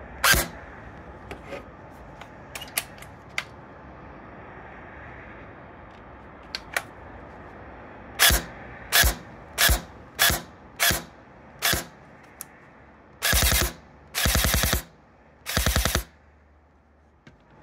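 Double Eagle M924 (DMP9) airsoft electric gun firing: a single shot at the start, then six semi-auto shots about two-thirds of a second apart, then three short full-auto bursts. A few faint clicks come in between.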